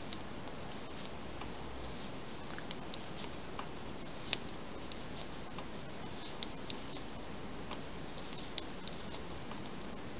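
Knitting needle tips clicking against each other as purl stitches are worked, a short sharp click every second or two, some in quick pairs, over a steady low hiss.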